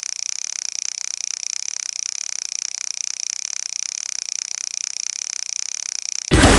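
A steady, high-pitched, rapidly pulsing chorus of calling animals. Near the end a loud sudden hit cuts in as music starts.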